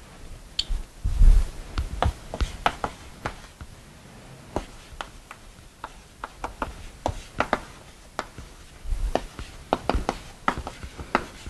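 Chalk writing on a blackboard: a string of sharp, irregular taps and short scrapes as an equation is written, with a dull thump about a second in.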